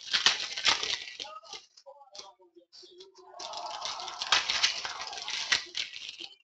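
Plastic trading-card pack wrapper crinkling and cards being handled, in two spells of rustling and small clicks, the second starting about three and a half seconds in.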